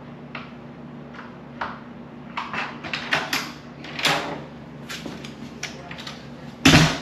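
A scatter of short clicks and rustles over a steady low hum, then one loud thump near the end.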